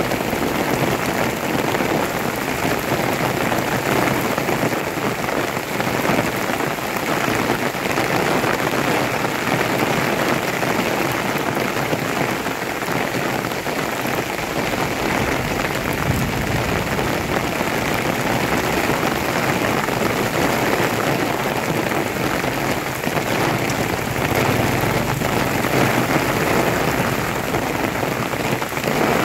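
Heavy rain pouring down steadily, an even, dense hiss of falling drops with no let-up.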